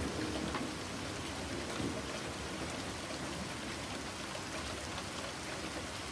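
Steady heavy rain: an even hiss of falling drops. A soft synth pad fades out in the first moment.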